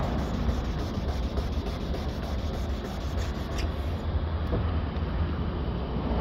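Hand wet-sanding of car paint: a sanding pad rubbed back and forth over a wet door panel, with a steady low rumble underneath.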